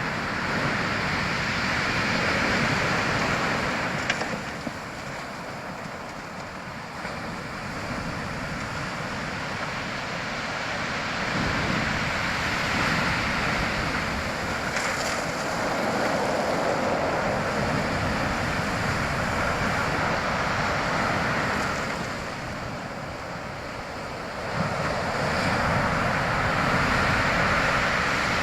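Strong sea waves breaking on the shore, the surf swelling and ebbing every few seconds, with a sudden loud surge near the end.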